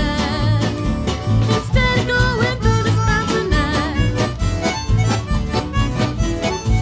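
Background music with a steady beat, a bass line and a wavering lead melody.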